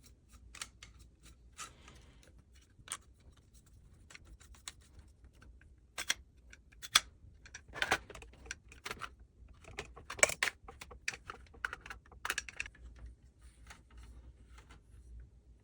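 Irregular clicks, taps and light rattles of small hard items being handled, busiest and loudest in the middle stretch.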